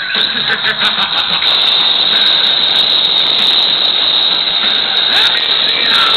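Loud live rock-concert sound in a hall, distorted by an overloaded camera microphone: a dense wash with a steady high whine on top.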